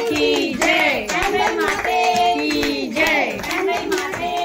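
Voices singing a song to rhythmic hand clapping.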